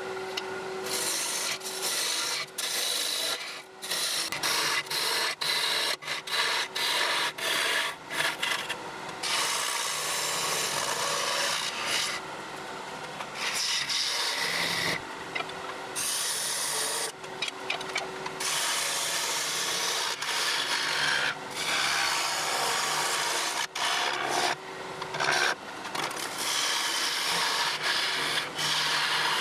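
A turning tool cutting a spinning yew blank on a wood lathe. It makes a rough scraping hiss that breaks off and starts again many times as the tool leaves and meets the wood, with a faint steady hum underneath.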